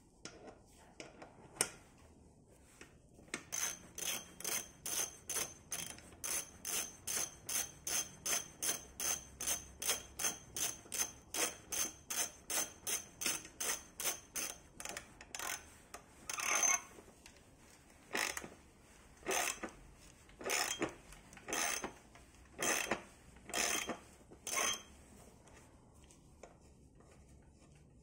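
Ratchet wrench clicking in quick, even strokes, about three a second, as it turns a crank puller threaded into a bicycle crank arm to draw the crank off its bottom bracket axle. About halfway through, the strokes slow to longer single sweeps about once a second, then stop a few seconds before the end.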